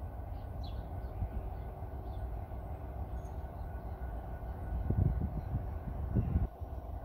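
Approaching locomotive: a steady low rumble that swells twice, about five and six seconds in, then drops away suddenly just before the end.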